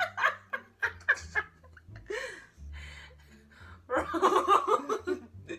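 Young women laughing in short bursts, with a longer, louder stretch of laughter about four seconds in.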